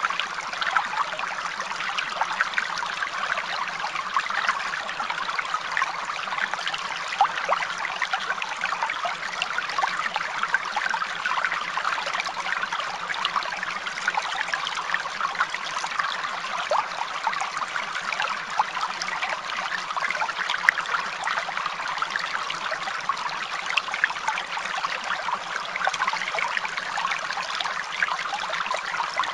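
Steady sound of running, trickling water.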